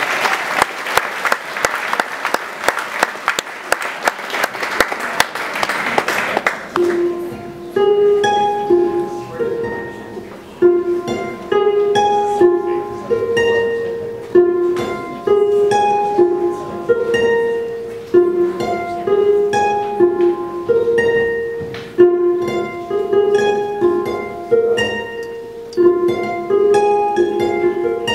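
Audience applause dies away about six seconds in, and a Lyon and Healy Concert Grand pedal harp begins a slow repeating figure of plucked notes, each note left to ring.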